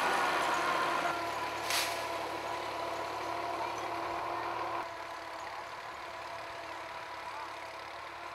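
An engine running steadily, with a short hiss about two seconds in; the sound drops in level in steps near one and five seconds in.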